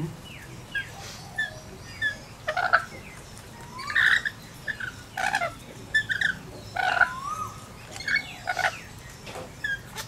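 Rainbow lorikeets calling: a run of short chirps every second or so, broken by several louder, harsher calls and a couple of short rising whistles.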